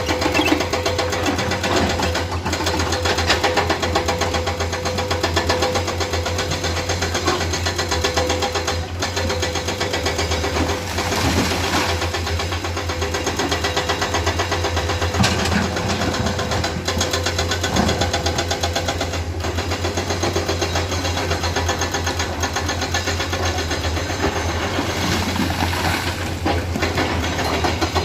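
Komatsu hydraulic excavator diesel engines running steadily under working load, with a constant low drone and an even tone over it.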